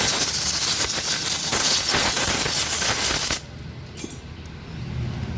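A loud steady hiss of escaping pressurised air or gas that cuts off abruptly about three and a half seconds in.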